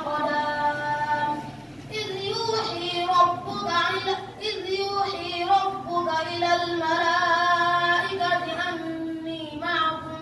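A child's high voice singing a melodic chant, holding long notes that slide between pitches, with short pauses for breath about two and four seconds in.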